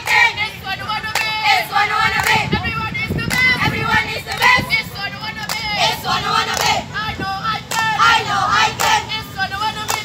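A group of young girls singing a chant together, with sharp hand claps among it.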